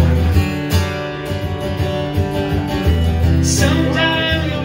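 Steel-string acoustic guitar strummed in steady chords, with a man's singing voice coming in about three seconds in.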